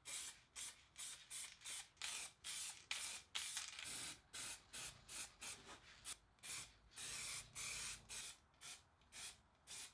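Aerosol spray paint can hissing in a quick series of short bursts, about two or three a second, with brief silences between; a few bursts run a little longer.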